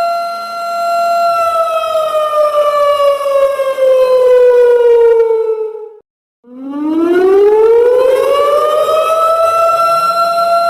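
Siren wailing: a steady pitched tone that, about a second in, slowly falls in pitch for several seconds. It cuts out briefly around the middle, then rises again and holds steady near the end.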